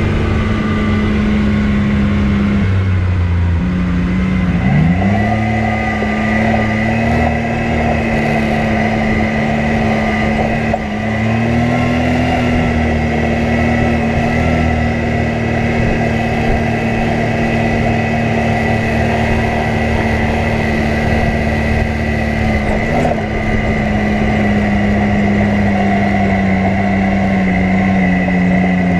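Off-road vehicle engine running steadily while riding a trail, its pitch dipping briefly a few times as the throttle eases and picks up again.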